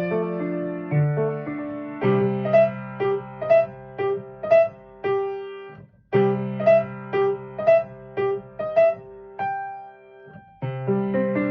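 Piano playing a slow, gentle piece: held low chords under a repeated melody note struck about twice a second. The phrase is played twice, the notes dying away in between, and a fuller run of notes begins near the end.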